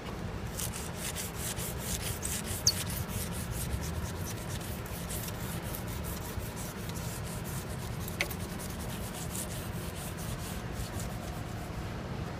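Rag rubbing back and forth along the metal rail of a kart stand in quick, repeated wiping strokes. Two sharp clicks come through, about 2.5 s and 8 s in, and a steady low hum runs underneath.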